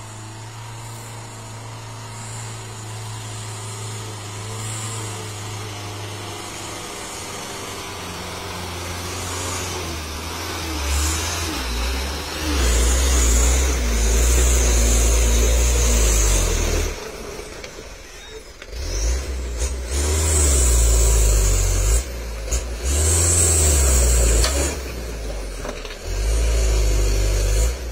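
Diesel dump truck engine, the truck heavily laden with oil palm fruit bunches, labouring slowly over a badly potholed dirt road. It is faint at first, gets loud about a third of the way in as the truck comes close, then rises and falls with the load, dropping away briefly a little past the middle.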